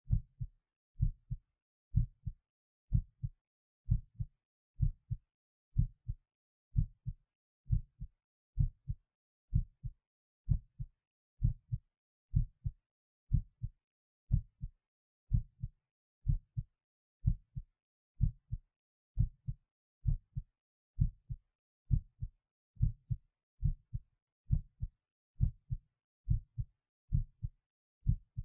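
A human heartbeat heard at the apex of the heart: paired lub-dub sounds, steady and regular, at about one beat a second.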